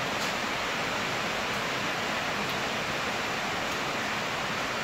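Steady, even rushing noise with no break, with a few faint clicks over it.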